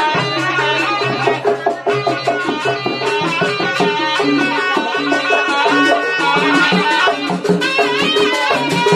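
Jaranan ensemble music: a reed trumpet plays a wavering melody over a dense beat of hand drums and sustained low gong tones.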